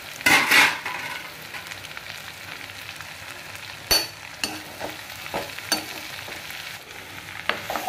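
Chopped okra sizzling in hot mustard oil in a kadhai while it is stirred, the spatula scraping and clattering against the pan. There is a loud scrape just after the start and a sharp knock about four seconds in.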